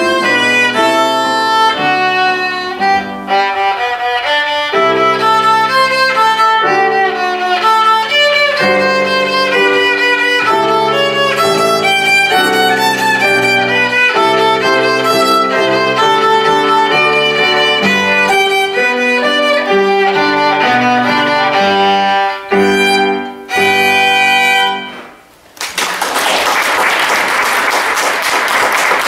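Live instrumental music, a melody over lower accompanying notes, that comes to its final chord about 25 seconds in; audience applause follows to the end.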